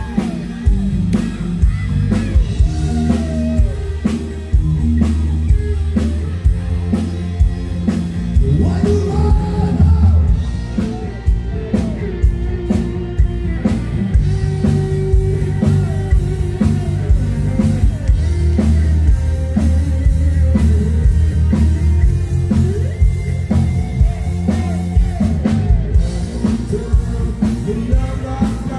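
Live rock band playing through a stage PA, with drum kit, electric guitar and bass under a male lead singer.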